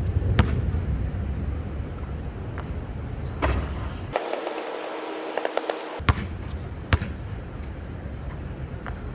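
A basketball bouncing on a court a few separate times, each bounce a sharp knock, over a steady low rumble.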